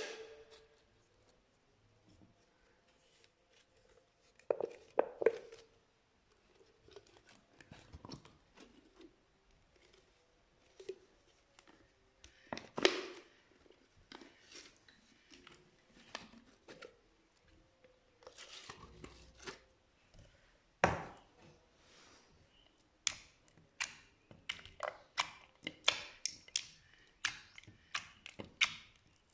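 Slime being squeezed and worked, giving scattered sticky clicks and squelches with a few louder squishes, then a quick run of crackling air-bubble pops near the end.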